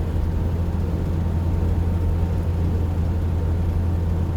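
Steady low drone of a vehicle driving, heard from inside the cabin: engine and road noise running evenly.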